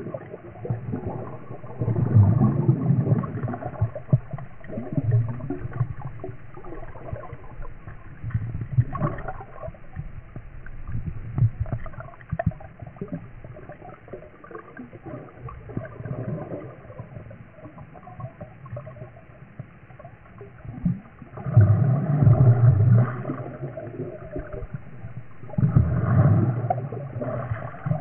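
Underwater sound of water churning and gurgling, mostly low in pitch. It swells and fades in uneven surges, with two long loud spells in the last third.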